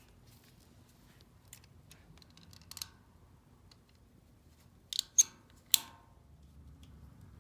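Strap webbing being worked through a tensioning buckle, quiet handling with a few faint ticks, then three sharp metallic clicks of the buckle hardware about five to six seconds in.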